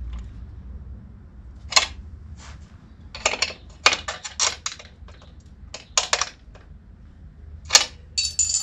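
Steel spanners clicking and clinking against the motorcycle's swing-arm chain-adjuster nuts as the tension nuts are tightened, in short single clicks and quick clusters of clicks. A ringing metallic clink sounds near the end.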